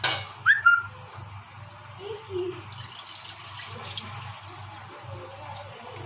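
A few sharp metal clinks, then from about three seconds in a steady stream of water poured from a steel saucepan into a kadai with a metal steaming stand in it, splashing on the pan's bottom.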